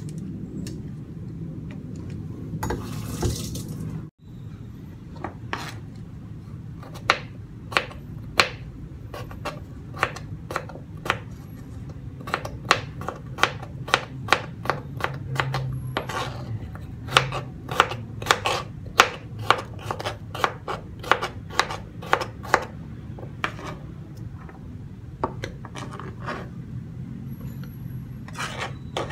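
Kitchen knife chopping red bell pepper on a plastic cutting board: a long, irregular run of sharp taps of the blade striking the board, two or three a second at its busiest.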